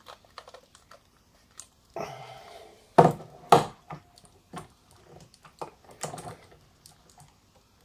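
Handling clicks and knocks from a Nikon F2A Photomic's metal body and controls as hands work it. The two loudest are sharp clicks about three seconds in, a little over half a second apart.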